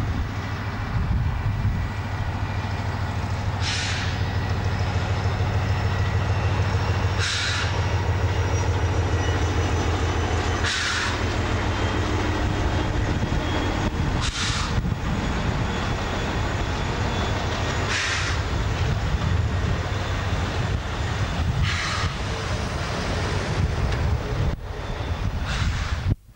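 British Rail Class 58 diesel-electric locomotive running past slowly with a train of loaded coal hopper wagons, its Ruston-Paxman V12 diesel a steady low drone. Short high squeals from the wagon wheels come about every three and a half seconds as the hoppers roll by.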